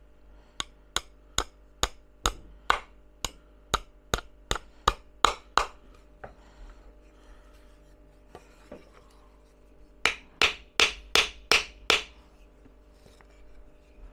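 Small hammer driving thin glass nails (panel pins) into pine slats: a run of about fourteen sharp taps, speeding up a little, then a pause and six quicker taps near the end. The nails are driven slowly because such thin nails bend easily.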